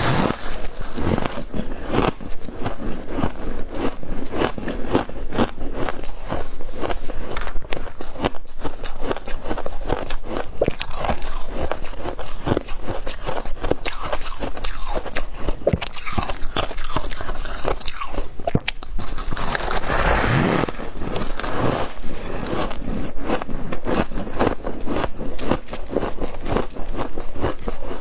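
Close-up biting and chewing of soft frost, a dense, rapid run of crisp crunches and scrapes.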